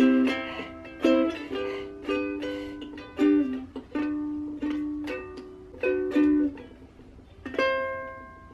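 Two ukuleles played together, a picked melody over plucked chords, closing on a final chord near the end that rings out and fades.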